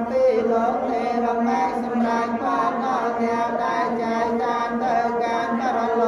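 Buddhist monks chanting in unison, a continuous droning recitation held close to one pitch.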